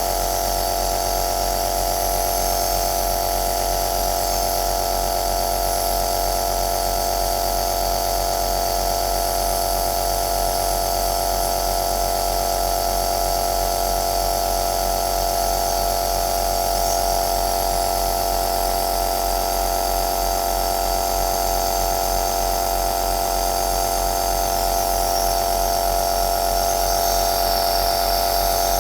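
Nebulizer (aerosol machine) running steadily: a constant motor hum with a high hiss of air over it.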